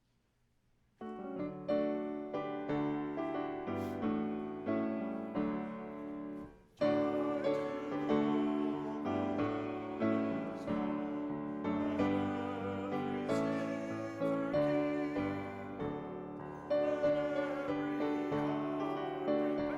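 Piano playing slow chordal music. It begins about a second in, breaks off briefly around six seconds, then carries on.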